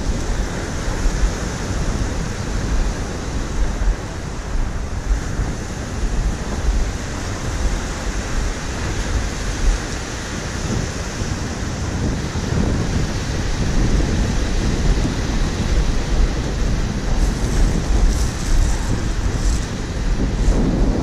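Wind buffeting the microphone over surf breaking on a gravel beach: a steady rushing noise with an uneven low rumble from the gusts.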